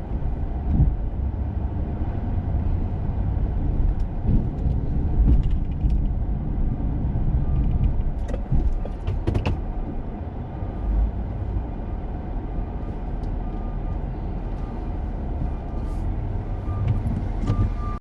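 Snowplow truck driving while plowing snow: a steady low engine and road rumble with a few sharp knocks and clunks.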